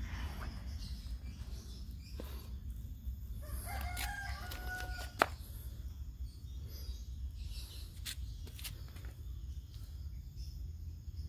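A rooster crows once, a held call of about a second and a half starting about four seconds in, over a steady low background rumble. A sharp click follows right after the crow and is the loudest sound. Two fainter clicks come about three seconds later.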